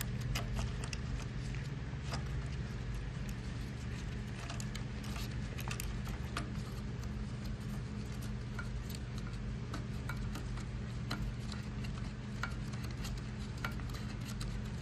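Scattered light clicks and taps of a plastic toilet fill valve and its parts being handled and fitted into the tank, over a steady low hum.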